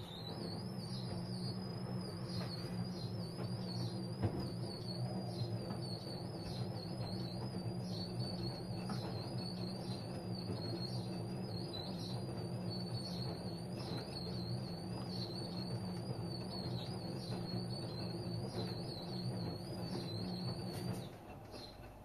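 AEG Öko Lavamat front-loading washing machine tumbling a wash: the drum motor runs with a low hum and a high, wavering whine, then cuts off about a second before the end. One short knock about four seconds in.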